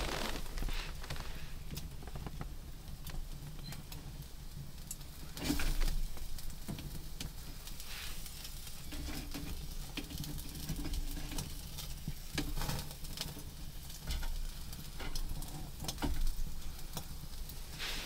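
Scattered small clicks and crackles of cooking at a metal wood stove, with the sizzle of meat on a skewer and a few louder knocks of handling, the loudest about five and a half seconds in.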